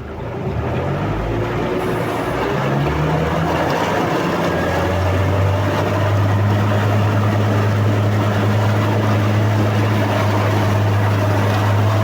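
Toyota engine of a tyred amphibious all-terrain vehicle picking up revs over the first few seconds and then running steadily under load as the vehicle drives through the water, its tyres paddling it along.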